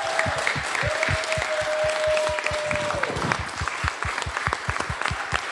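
A small group of people clapping and cheering, with one long held cheer that starts about a second in and falls away a little after the middle.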